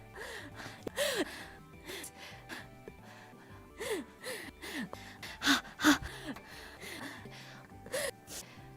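A man's short, breathy gasps and voiced breaths, about a dozen in quick succession, each with a brief rise and fall in pitch; the two loudest come about five and a half and six seconds in. Quiet background music with low held notes runs underneath.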